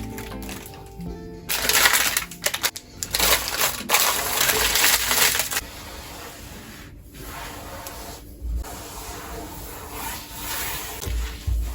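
Rustling and clattering of pantry items being handled, loudest in a stretch during the first half, with quieter handling noises after that and soft background music.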